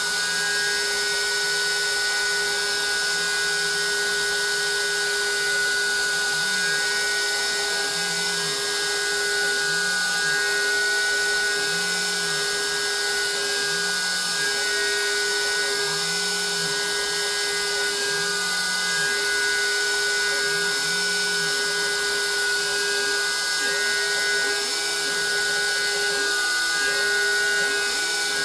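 Compact wood router running steadily on a homemade CNC machine as it cuts a piece of maple, a high motor whine over the cutting. Beneath it the stepper motors whine up and down about every two seconds as the axes move back and forth. Near the end their whine comes higher and quicker with the feed rate turned up to 100%.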